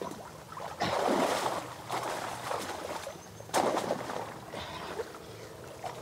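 Shallow water splashing and sloshing as hands churn and scoop through it, in several separate bursts.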